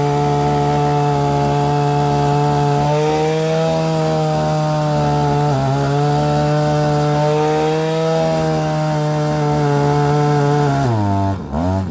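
Gas-powered earth auger engine running steadily under load as it bores a post hole. Near the end it bogs down sharply, its pitch dropping and then climbing back: the auger bit has hit a rock.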